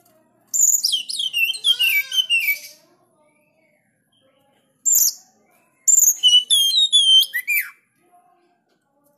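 Oriental magpie-robin singing sharply: a rapid phrase of varied high whistles with sliding, mostly falling notes about half a second in, a single short note near five seconds, then a second phrase of looping whistles from about six seconds.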